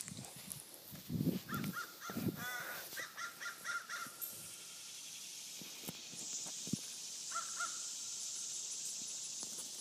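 A crow cawing: a quick run of about half a dozen caws, then a couple more after a pause. A few low thumps come in the first seconds.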